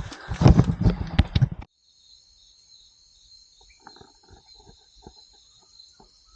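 Insects chirring steadily at a high pitch, with faint scattered ticks underneath. This starts after a louder, unidentified sound that cuts off abruptly about a second and a half in.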